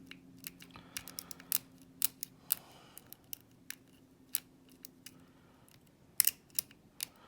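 Small lock pick clicking and scraping against the sliders inside a safety lockout padlock while it is being picked: irregular sharp ticks.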